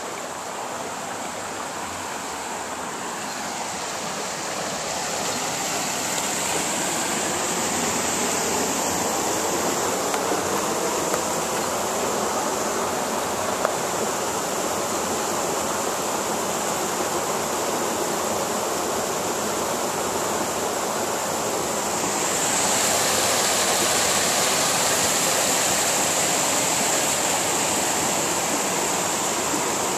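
Shallow stream rushing over flat rock ledges and small cascades: a steady rush of water that grows louder over the first several seconds and steps up again about three-quarters of the way through, as a small fall over a ledge comes close.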